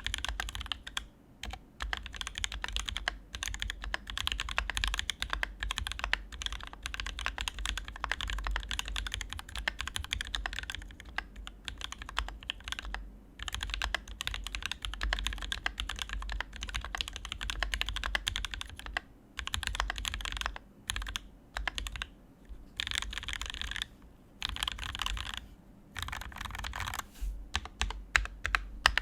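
Fast, continuous typing on a Praxis custom mechanical keyboard with an aluminium plate, its OA switches lubed with 205g0 and fitted with TX films, and Zeal stabilisers. The keystrokes come in dense runs broken by a few brief pauses.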